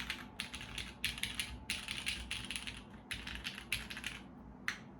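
Typing on a SINGA Unikorn R2.1 mechanical keyboard with lubed Cherry MX2A Black linear switches, aluminium plate, O-ring mount and GMK keycaps: quick runs of keystrokes, thinning to a single keystroke near the end.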